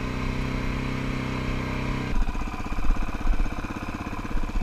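Suzuki DRZ400E's single-cylinder four-stroke engine idling just after a cold start, warming up after four months unused. About two seconds in, the steady note drops to a slower idle.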